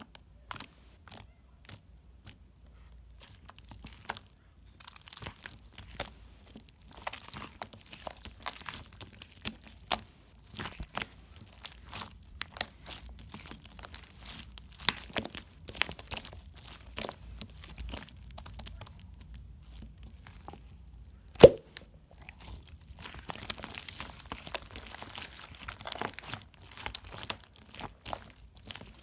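Pink sequined slime being handled, giving an irregular run of small clicks and crackly pops, with one sharp, louder pop about three-quarters of the way through.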